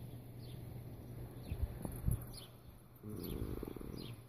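A small bird chirping repeatedly in the background, short high falling notes about every half second. A few soft low knocks come in the middle, and a brief low hum about three seconds in.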